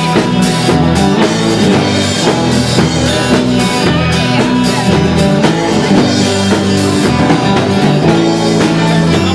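Rock band playing live: an instrumental passage of guitar over a drum kit, with no singing.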